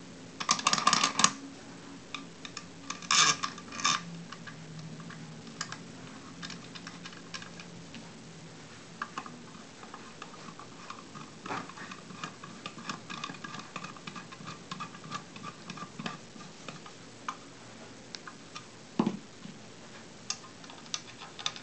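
Metal clicks and clinks of a storm-door pull handle and its screws against an aluminium door frame section, with a screwdriver driving a screw into the handle. Two sharp clusters of clicks come about a second in and around three seconds in, followed by a long run of light ticks and a single louder knock near the end.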